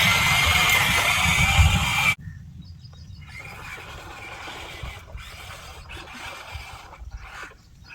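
Electric motor and gearbox of a radio-controlled construction model running with a high whine, cutting off abruptly about two seconds in. Fainter whirring and scraping with a few small clicks follow.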